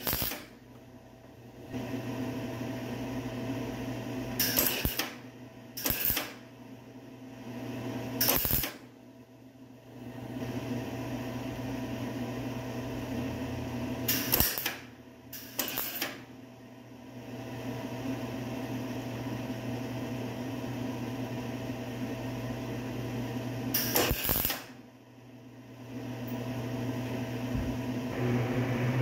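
MIG welder laying short tack welds on a steel fender patch panel: six brief bursts, each under a second, spaced irregularly, with a steady low hum between them.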